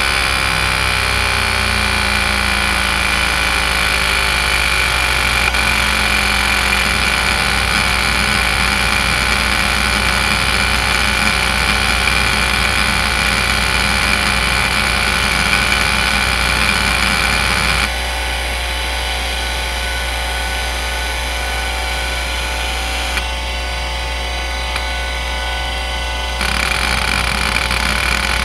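Seagate ST3211A (relabelled Conner CFS210A) hard drive spinning with a steady whine while its head actuator seeks continuously under a seek-time benchmark, a dense mechanical chatter. The seeking quietens for about eight seconds in the second half, then grows louder again near the end.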